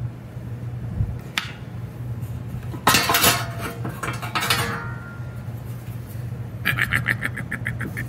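Sheet-metal burner front panel being handled on a workbench: a few light clicks, then a loud metallic clank about three seconds in that rings on for a couple of seconds, and a quick rattle near the end. A steady low hum runs underneath.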